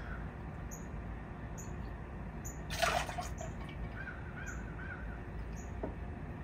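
Vodka poured from a metal jigger into a steel cocktail shaker: a brief splash with a short metallic ring about three seconds in.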